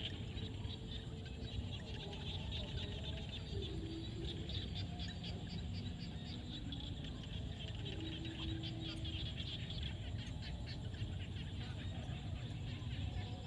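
Chorus of frogs calling in a field, with dense rapid clicking calls and a few short lower croaks over a steady low rumble.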